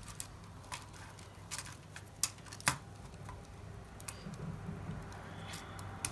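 Strandbeest model-kit parts clicking and knocking as they are handled and snapped together: a scattered run of small clicks, the loudest two about two and a half seconds in.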